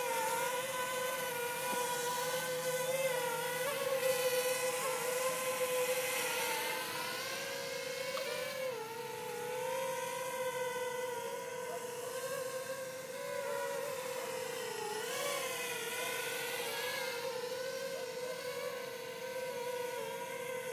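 JME quadcopter drone's propellers buzzing in flight, a steady pitched hum that wavers and dips in pitch twice as the drone maneuvers, about halfway through and again near three-quarters of the way.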